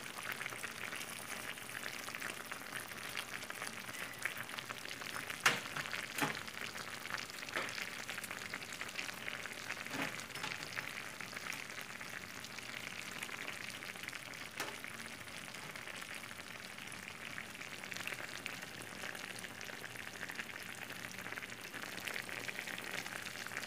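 Chicken and vegetable stew in tomato sauce sizzling and crackling steadily in a wide frying pan, with a few sharper clicks about five to six seconds in and again about ten seconds in.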